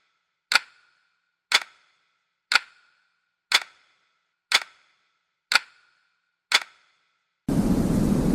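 Clock-like ticking, one sharp tick a second, seven in all. About seven and a half seconds in, steady white noise starts abruptly and runs on.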